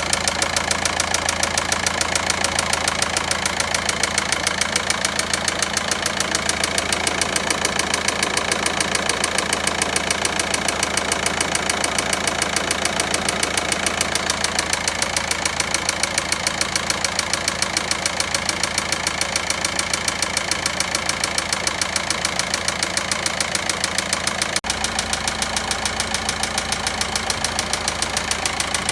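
Volkswagen Passat 1.9 four-cylinder diesel engine running at idle with a fast, even pulsing beat: the abnormal engine noise being checked.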